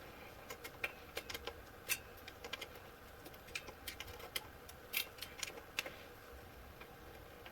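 Light, irregular metal clicks and ticks from a bike multi-tool being handled and worked on the freshly fitted BMX crank, dozens of small taps with a few louder ones.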